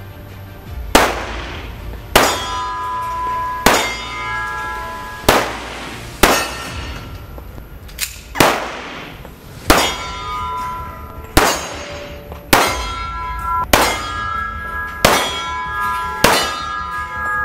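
A .45-calibre semi-automatic pistol fires about thirteen single shots at a slow, uneven pace of roughly one a second. Many of the shots are followed by a short metallic ring.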